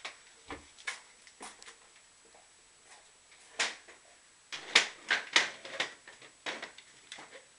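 Irregular knocks, clunks and clatters of someone moving about at a computer desk and handling things on it, with a louder cluster a little past halfway.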